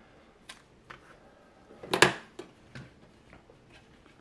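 Light clicks and knocks from the opened Sartorius analytical balance's case and circuit-board assembly being handled and shifted by hand, with one louder knock about two seconds in.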